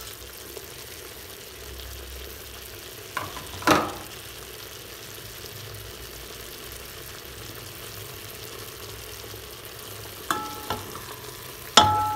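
Beef pieces frying in ghee in a pressure cooker pot, a steady low sizzle. A knock about a third of the way in, and near the end a few sharp clanks of the spatula against the pot, which rings after each strike as the meat is stirred.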